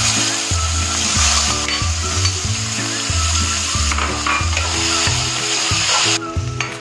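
Cubed green bell peppers sizzling in hot oil in a kadhai as they go in and are stirred with a steel spatula. The sizzle drops away shortly before the end.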